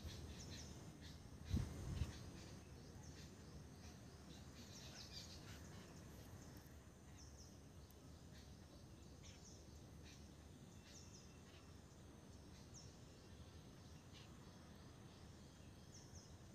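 Quiet outdoor ambience with faint small birds chirping: short, high chirps that drop in pitch, every second or two. Two dull low thumps come about a second and a half in.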